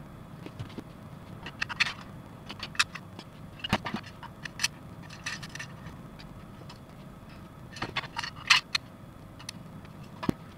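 Hard plastic parts of a Bandai Super Minipla Rectioneter model kit clicking and tapping as they are handled and pressed together, in scattered clusters of short sharp clicks over a steady low background rumble.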